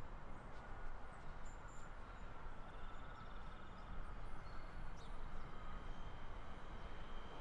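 Siemens Nexas electric multiple unit coming in to the platform: a low rumble with a faint, steady high whine.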